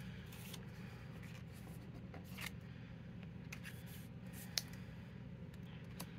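Faint light clicks and rustles of cards and packaging being handled, over a steady low hum; one sharper tick about four and a half seconds in.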